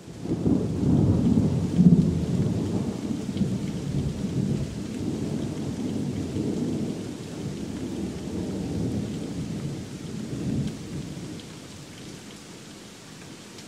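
A long roll of thunder that starts suddenly, peaks about two seconds in and rumbles away over some ten seconds, over steady heavy rain.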